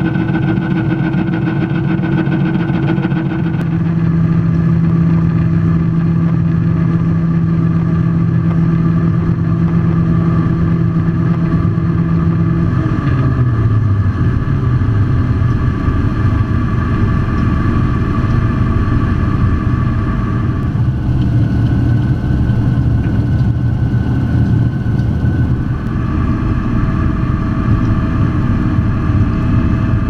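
John Deere T560i combine harvester running while harvesting wheat: a steady machinery drone with several held tones, which steps down in pitch about 13 seconds in.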